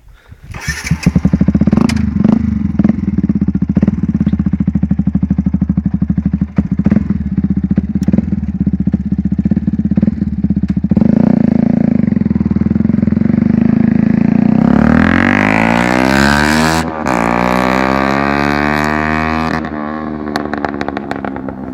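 Yamaha sport motorcycle with a LeoVince aftermarket exhaust idling with sharp throttle blips, then pulling away and accelerating through the gears: the engine note climbs, drops at a gear change about 17 seconds in, and grows quieter near the end as the bike rides off.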